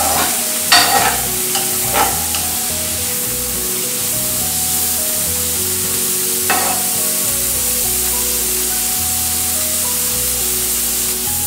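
Chopped onions sizzling steadily as they fry in butter in a wok, on their way to light brown. A steel spatula scrapes and stirs them a few times, mostly in the first two seconds and again about six and a half seconds in.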